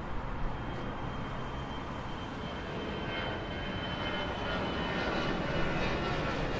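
Steady outdoor street ambience: a continuous low rumble with a thin, level high whine, slowly growing a little louder.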